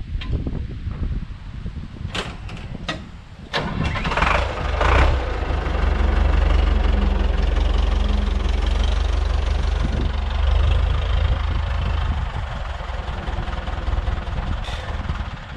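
Fendt Farmer 108 tractor's diesel engine being started: a few sharp clicks, a short burst of cranking as it catches, then steady running as the tractor moves off.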